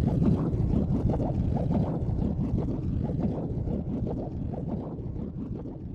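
Low, rumbling, wind-like ambient soundtrack fading out steadily toward the end.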